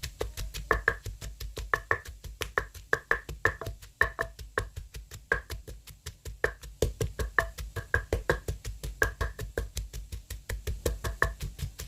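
Pestle pounding roasted chilies in a mortar: rapid, even knocks, several a second, each with a dull thud.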